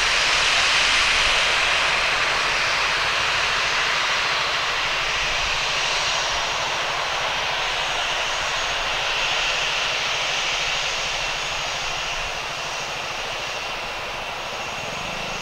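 Boeing 737-900ER's CFM56 turbofan jet engines running as the airliner rolls along the runway: a steady, loud rush that slowly fades after about a second in.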